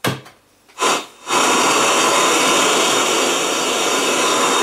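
Sharp GF-305SB boombox radio switched on: a click, a short burst of noise just before a second in, then loud, steady hiss of an untuned FM radio from its speakers, before a station is tuned in.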